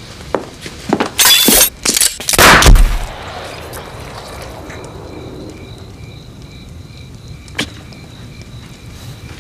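A small pistol, a derringer, fired once at close range: a loud bang with a deep low end about two and a half seconds in, just after a sharp hissing snap. A low steady background with a faint high tone follows, broken by one sharp click near the end.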